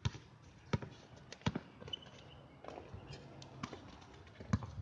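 Basketball being dribbled on a hard outdoor court: three sharp bounces about three-quarters of a second apart, then fainter, irregular knocks as play moves toward the basket.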